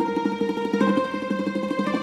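Background music on a plucked string instrument, with quick repeated notes over held tones.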